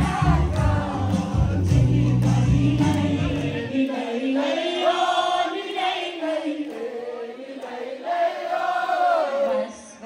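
Music with a heavy bass beat and several voices singing together; the bass cuts off about four seconds in, leaving the voices singing on their own.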